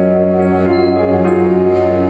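Music playing loud and steady: sustained chords with a melody moving over them.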